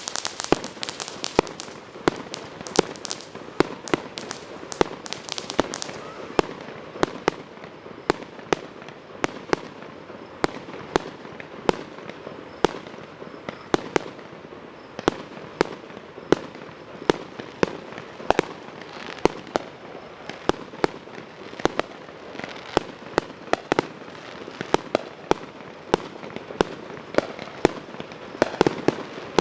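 Fireworks show: a running series of sharp bangs and pops from bursting fireworks, a few every second, most closely packed in the first few seconds.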